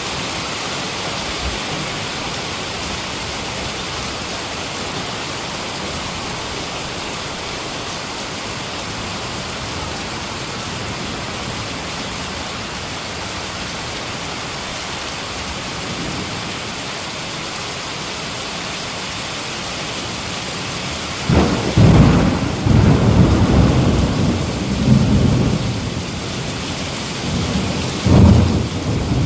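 Heavy rain falling steadily as an even hiss, then thunder rumbling in loud rolls from about two-thirds of the way through, easing briefly and rolling again near the end.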